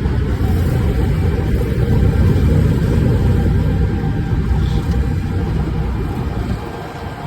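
Diesel engine of a Preet 987 combine harvester running steadily under way on the road, a loud low rumble that swells a little a couple of seconds in and eases off near the end.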